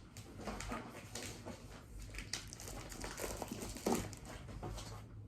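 Handling noise from a desktop PC case being moved and worked on by hand: scattered light clicks, taps and rustling, with a louder knock about four seconds in.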